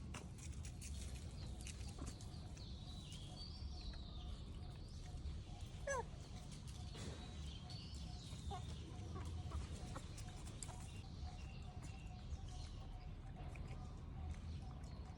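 Faint outdoor animal calls over a low steady rumble: high chirps from birds, with a short louder call about six seconds in.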